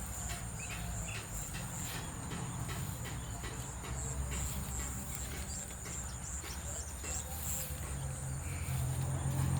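Insects trilling steadily at a high pitch, with a run of quick clicks over most of the stretch and a low hum growing louder near the end.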